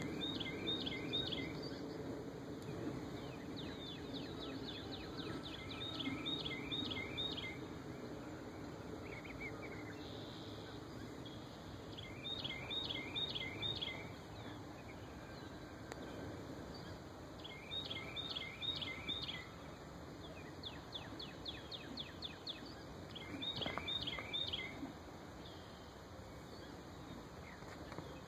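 A songbird singing short phrases of three or four quick repeated notes, one phrase every few seconds, over a steady outdoor background hum.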